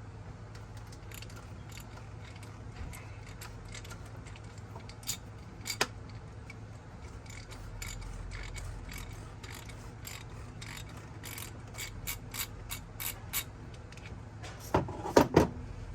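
Socket ratchet clicking in short runs as the oil filter is loosened, with a few louder knocks near the end.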